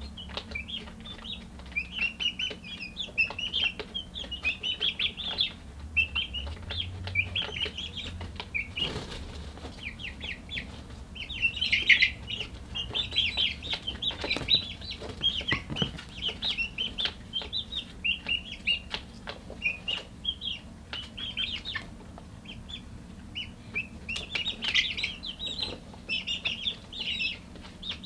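Young chickens peeping and chirping almost without pause, in short high chirps in quick succession that grow busiest about twelve seconds in and again near the end. Scattered light taps and a faint steady low hum sit underneath.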